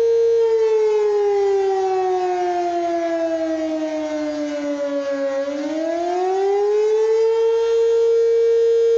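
Outdoor civil defense warning siren sounding during its weekly noon test: a steady tone that sags slowly in pitch from about half a second in until about five seconds in, then climbs back up to the same steady tone about two seconds later.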